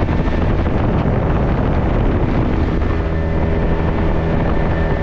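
Motorboat engine running steadily at speed, with a constant engine drone and whine and wind buffeting the microphone. It starts abruptly at a cut.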